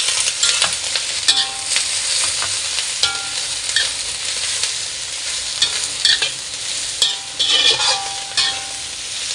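Chopped napa cabbage sizzling in a hot wok as a metal spatula stir-fries it, the spatula scraping and clanking against the wok every second or so, some strikes leaving a brief metallic ring.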